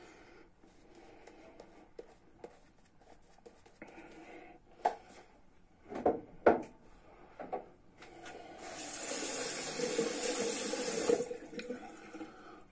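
Bathroom sink tap running for about two and a half seconds, starting about nine seconds in. Before it come a few short knocks and clatters of things being handled, two of them louder, about six seconds in.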